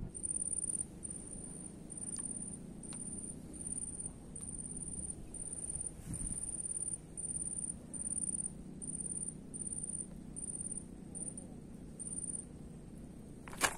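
High-pitched insect chirping, a single steady pitch repeated in a regular run of short pulses a little faster than one a second, over a faint low outdoor hum. One sharp knock near the end.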